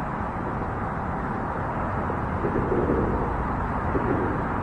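Steady rumble of distant road traffic.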